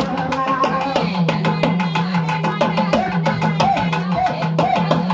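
Lively dance music accompanying a kummi folk dance, with a fast, steady drum beat, a wavering melody line and a held low note.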